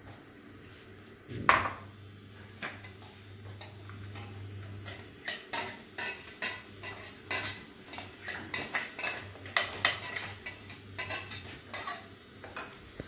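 A spoon scraping and clinking against a stainless-steel mixer-grinder jar as thick ground chutney is emptied out of it. There is one sharp clink about a second and a half in, and from about halfway a quick, irregular run of scrapes and taps.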